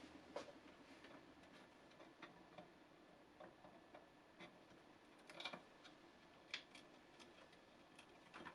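Faint, irregular small clicks and light taps of desktop PC hardware being handled, a few seconds apart over a quiet background.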